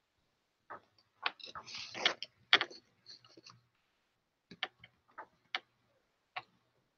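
About fifteen light, irregular clicks and taps, clustered near the start and sparser later, with a faint hum under some of them.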